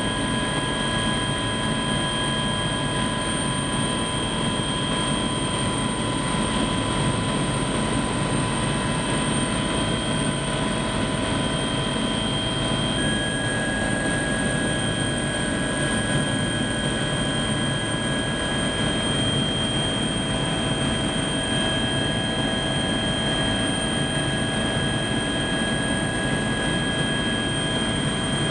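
Helicopter in flight heard from inside the cabin: a steady, unbroken drone of engine and rotor with several steady high-pitched whines laid over it.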